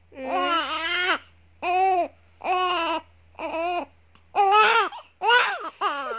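Newborn baby crying in a string of short wails, about seven, each rising and falling in pitch, with brief breaths between them.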